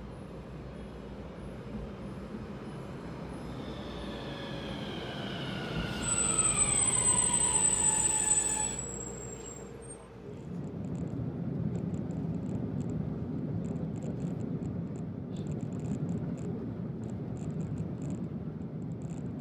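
Centram low-floor streetcar slowing into a stop: the whine of its electric drive falls steadily in pitch, with a high wheel squeal at its loudest just before it dies away. About ten seconds in the sound changes to a steady low rumble with faint ticking.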